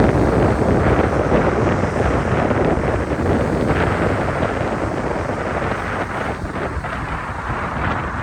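Wind buffeting the microphone: a loud, steady rushing rumble that eases off slightly toward the end.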